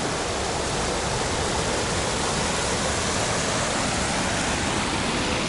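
River water spilling over a low weir, a steady rushing sound with no break or change.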